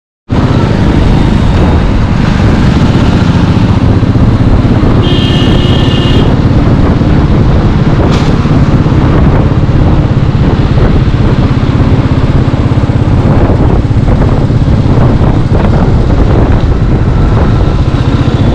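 Royal Enfield Meteor 350's single-cylinder engine running steadily while riding, under heavy wind rumble on the microphone. A short high tone sounds about five seconds in.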